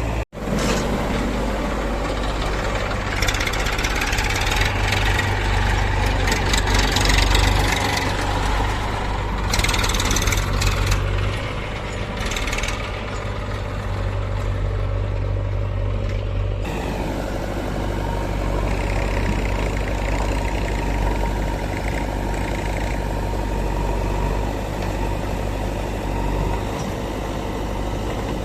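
Diesel engine of a tractor or backhoe running steadily. For a long stretch in the first half, louder rattling and rushing noise lies over it.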